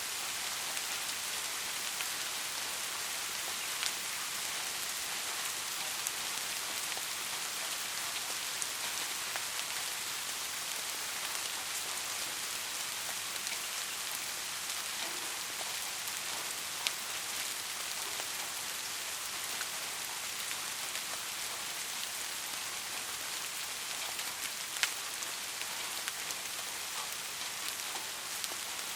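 Steady rain falling: an even hiss, with an occasional louder single drop hit standing out every several seconds.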